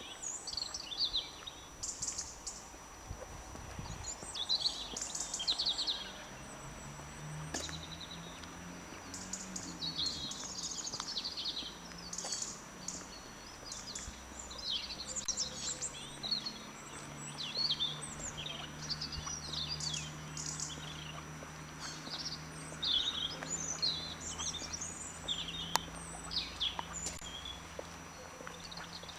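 Small songbirds chirping and trilling continuously in many short overlapping calls. A faint low steady hum runs underneath from about seven seconds in.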